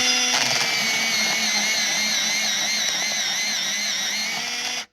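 Automatic electric pencil sharpener running hands-free, its motor whining steadily while the blades grind a pencil to a point. The whine wavers slightly under the cutting load and cuts off suddenly near the end.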